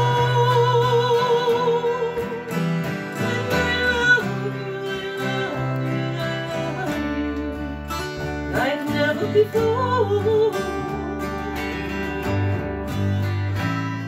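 A woman sings held, wavering notes over acoustic guitars strummed by several players. About 8.5 seconds in, her voice slides up.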